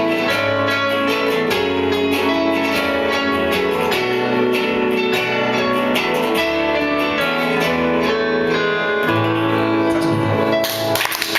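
Live band playing a guitar-led song with strummed guitars and a bass line; the song ends near the end and audience applause begins.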